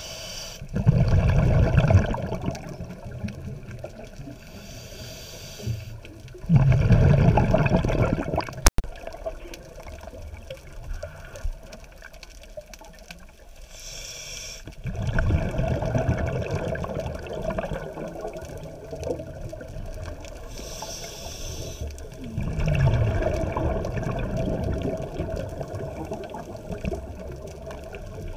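Scuba diver breathing underwater through a regulator: a short high hiss on each inhale, then a longer burst of rumbling exhaust bubbles on each exhale, about four breaths in a slow, even rhythm. A single sharp click a little under 9 seconds in.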